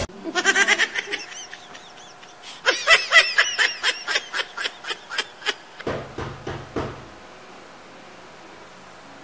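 Rapid, high-pitched cackling laughter, about five short laughs a second, for around five seconds, followed by a shorter, lower burst of laughter about six seconds in.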